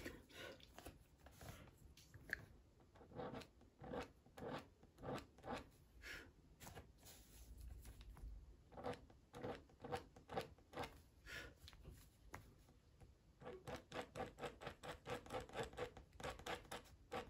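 Faint scratching of a Slice ceramic-blade pen cutter stroked across coloured pencil on hot-press watercolour paper, in short separate strokes that quicken to about four a second near the end. The blade is biting into the paper itself rather than cleanly lifting the top layer of pencil.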